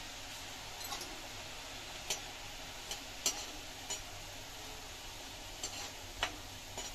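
Besan batter drops frying as boondi in hot oil in a kadhai, a steady sizzle. A metal slotted spoon stirring the boondi clicks sharply against the pan about eight times.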